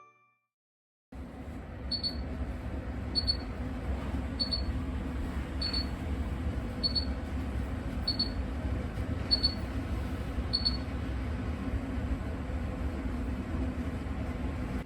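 Kitchen range hood fan running with a steady hum while its warning alarm gives eight short high beeps about a second apart, then stops beeping. The alarm is a sign that the long-neglected, greasy hood is due for cleaning.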